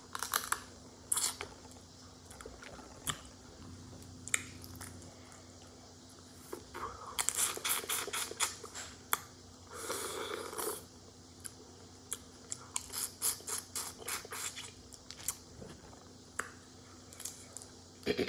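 Close-up eating of a seafood boil: chewing and crunching with many quick clicks and crackles of shell being picked, coming in clusters, and a longer wet mouth sound about ten seconds in.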